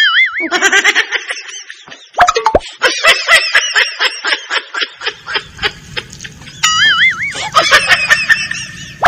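Metal crockery clattering: pots and pans banged and dropped in a rapid run of sharp clangs. A warbling comic sound effect is laid over it, once at the start and again about two-thirds of the way through.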